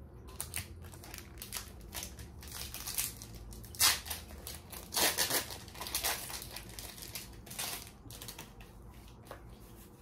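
Foil Pokémon booster pack wrapper crinkling and tearing as it is worked open by hand: a run of sharp crackles, loudest about four and five seconds in.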